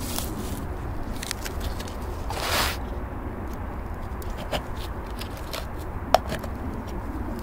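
Handling noises, scraping and rustling, with a short hiss about two and a half seconds in and a sharp click about six seconds in, over a steady low rumble.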